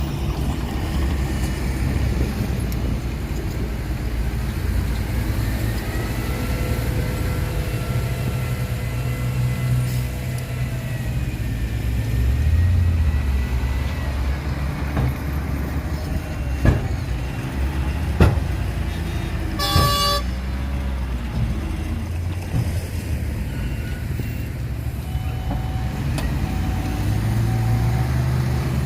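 Heavy diesel earth-moving machinery running steadily with a deep rumble. A horn sounds for several seconds midway, followed by a couple of sharp knocks and a short loud blast, and short repeated beeps come near the end.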